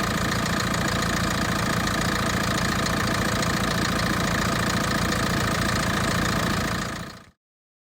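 Diesel engine of a JCB 3CX backhoe loader idling steadily, then fading out quickly near the end.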